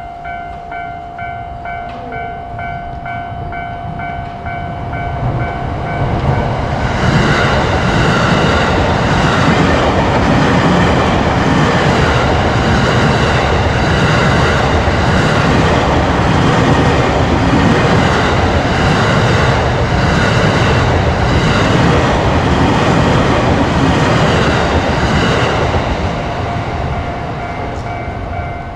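Japanese level-crossing alarm bell ringing in a quick, even pulse. About six seconds in it is drowned out by a JR commuter train passing close by, its wheels clacking over the rail joints. The bell is heard again near the end as the train clears.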